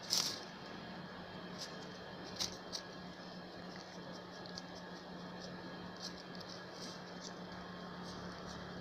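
A small dog nosing and pawing through frosted grass and dry fallen leaves, making scattered short crunches and rustles, one louder crunch just after the start, over a steady faint hiss and low hum.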